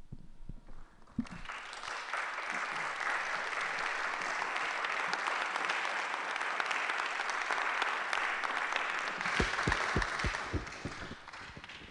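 Audience applauding. The clapping starts about a second in, holds steady and dies away near the end.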